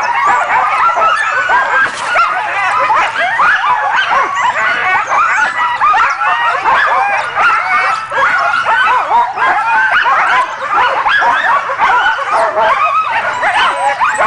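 A team of husky sled dogs in harness yelping, barking and whining all at once in a continuous, overlapping chorus, the excited clamour of sled dogs straining to run while the team is held at a standstill.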